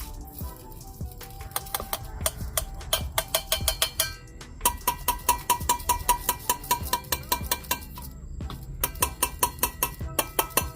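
Rapid, repeated metallic tapping or clinking, about four to five strikes a second, each strike ringing briefly. The strikes come in three runs with short gaps between them.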